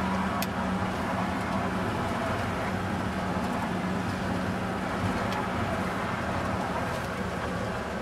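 Steady engine and tyre noise inside the cabin of a moving car, with a constant low hum and a brief click about half a second in.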